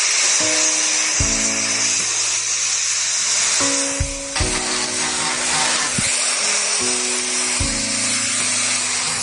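Background music with changing chords over the steady high hiss of a power tool working wood.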